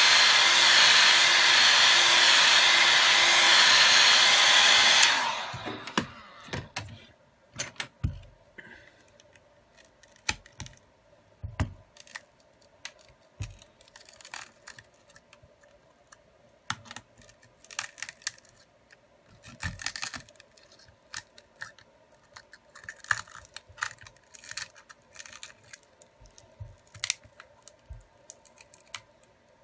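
Hot-air blower running steadily over a cracked phone screen to soften its adhesive, then cutting off suddenly about five seconds in. After that come scattered small clicks and scrapes as the phone is handled and pried at its edge.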